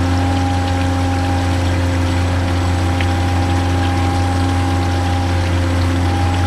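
Steady hum of a small motor with a fainter, higher whine above it; the whine shifts slightly in pitch near the end.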